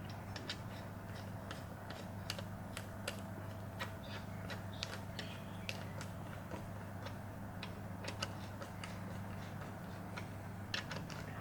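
Light, irregular metallic clicks and taps from hand tools and engine parts as a connecting rod cap is seated and its bolts are run down, over a steady low hum.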